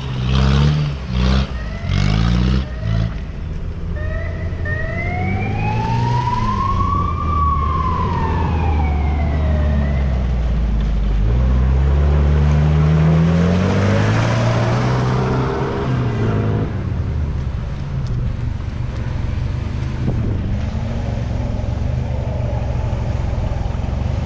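Off-road 4x4 engines revving up and dropping back as the vehicles drive through deep mud. About four seconds in, a siren gives one wail that rises for about three seconds and then falls away.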